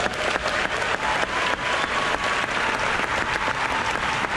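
A large audience applauding steadily: many hands clapping at once in a dense, continuous patter.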